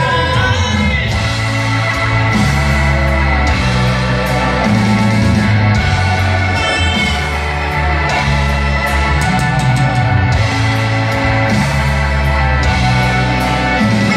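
Rock band playing live, heard from the audience in a concert hall: dense sustained chords over deep bass notes that change every second or two.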